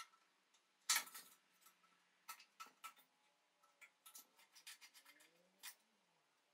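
Faint, scattered metal clicks, taps and short scrapes as a small hand tool and a thin wire work at the rim of a Tilley FL6 lamp's metal reflector housing, the sharpest click about a second in and a quick run of small clicks toward the end.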